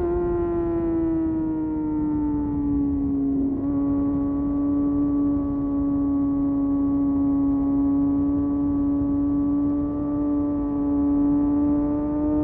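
Kawasaki ZX-6R's 636 cc inline-four engine held at steady high revs, a sustained high pitch that eases down a little over the first few seconds and then holds level, over a low rumble.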